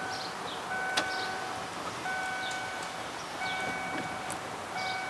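Chevy Silverado's dashboard warning chime ringing over and over, one ding about every second and a third.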